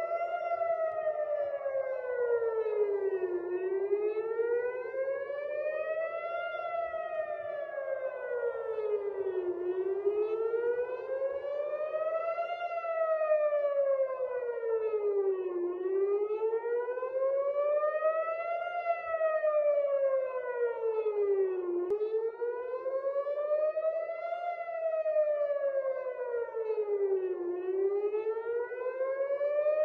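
Civil-defence air raid siren sounding a missile alert, its pitch rising and falling in a slow cycle about every six seconds.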